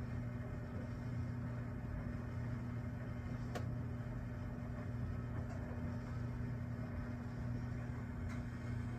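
A steady low machine hum, with two faint ticks: one about three and a half seconds in and one near the end.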